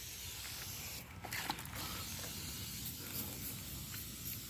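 Aerosol tire-shine spray hissing from the can onto a tire's sidewall, breaking off briefly about a second in and then resuming.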